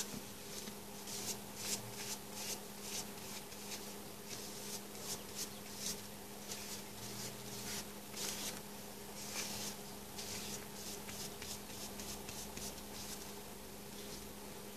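Paintbrush stroking Mod Podge onto a paper napkin over a book page: soft, irregular brushing strokes of bristles on damp paper, about one or two a second. A faint steady hum runs underneath.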